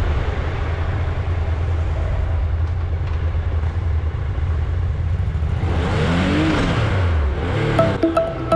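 Onboard sound of a motorcycle being ridden at low speed: a steady low engine and road rumble. About six seconds in, an engine note briefly rises and falls, and electronic music with a steady beat comes in near the end.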